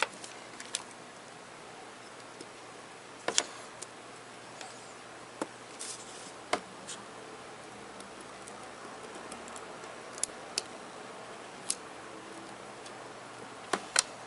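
Scattered small, sharp clicks and taps of a watchmaker's tools, a screwdriver and tweezers, on the metal parts of an Elgin pocket watch movement, about a dozen at irregular spacing over a faint hiss.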